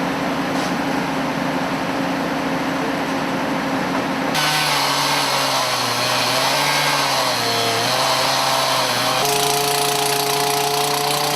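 Machinery running with a steady hum and whine. The sound changes abruptly twice, and in the middle stretch the whine dips and rises in pitch.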